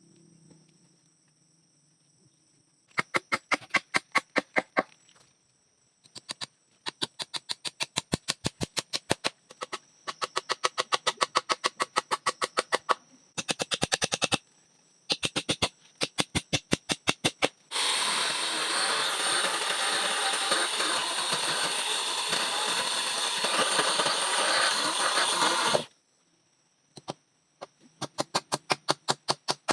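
Night animal calls: repeated bursts of rapid clicking pulses, about ten a second, each burst lasting one to three seconds. About two-thirds of the way through, a dense loud chorus cuts in for about eight seconds and stops suddenly.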